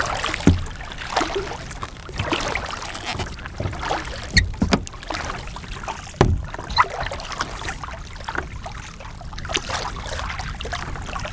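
Kayak paddling: the paddle blades dipping and splashing in choppy water, with water lapping at the hull. A few sharp knocks and low thumps stand out, about half a second in, around four and a half seconds and about six seconds in.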